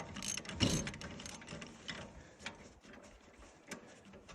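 Ratchet wrench and socket clicking as it backs off the blade-tension bolt on a bandsaw mill, releasing blade tension to change the blade. A dull knock comes about half a second in, then the clicks turn sparse and irregular.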